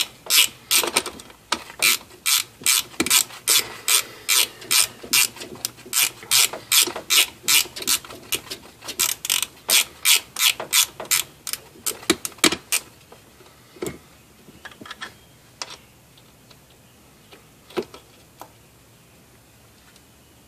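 Ratcheting wrench clicking in quick back-and-forth strokes, about two to three a second, as a bolt is worked loose. The strokes stop about two-thirds of the way through, and a few scattered clicks follow.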